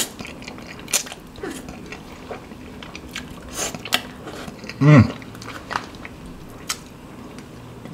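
Close-miked eating sounds: instant noodles slurped and chewed, with scattered wet mouth clicks and smacks. A brief vocal sound about five seconds in.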